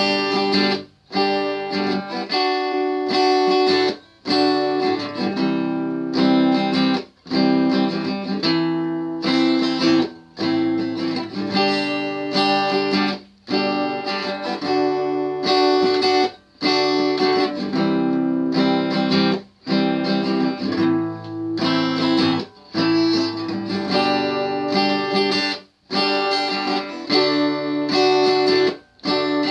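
Guitar playing an instrumental piece of plucked and strummed chords, with brief pauses about every three seconds between phrases.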